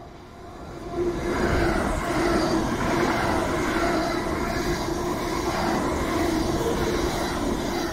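Thameslink Class 700 electric multiple unit running along the platform, its wheels rumbling on the rails with a steady hum. It grows loud about a second in as the train draws level, then stays loud.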